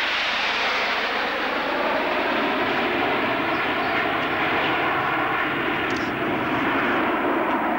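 Jet noise from the Red Arrows' formation of nine BAe Hawk T1 jets flying past, a steady rushing sound that holds level throughout.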